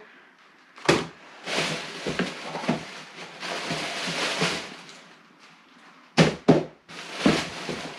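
A black plastic trash bag rustling and crinkling as someone rummages through it, with a sharp knock about a second in and three more near the end as items are handled against a plastic storage tote.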